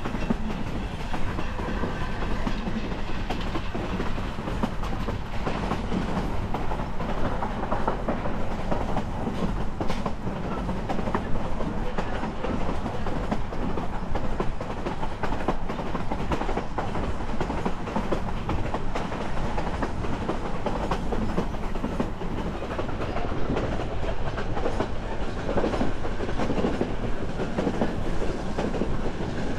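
Steady rumble and rattle of a restored late-1800s narrow-gauge passenger coach rolling along the track, its wheels clicking over the rails, heard from aboard the train.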